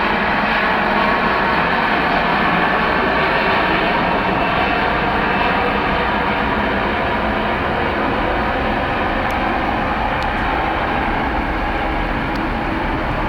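Jet airliner engines running loud and steady close by, easing off slightly near the end.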